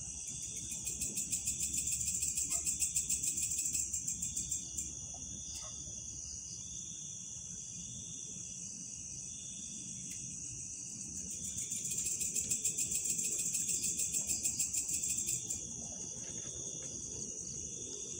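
Night insects: crickets trilling in a steady run of short, repeated trills, with a higher, faster-pulsing insect buzz that swells up twice for a few seconds at a time.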